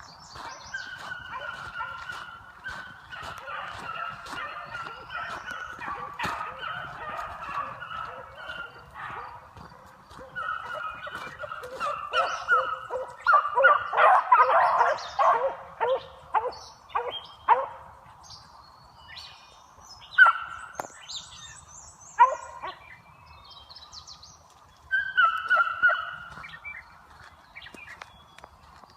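A pack of beagles baying on a trail, many voices overlapping and swelling to a loud chorus about halfway through, then thinning to a few scattered bays near the end.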